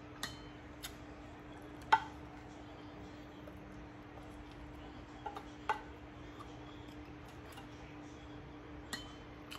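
A spoon clicking and scraping against a plate as food is scooped up, about six sharp clinks with the loudest about two seconds in, over a steady low hum.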